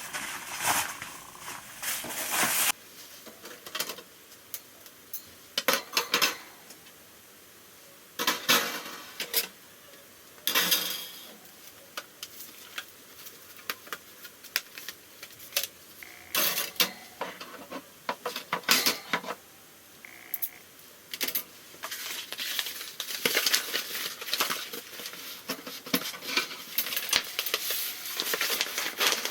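Thin metal parts of a folding barbecue grill and fire pit clanking and scraping as they are handled, in irregular bursts of clatter with quiet gaps between, busier near the end.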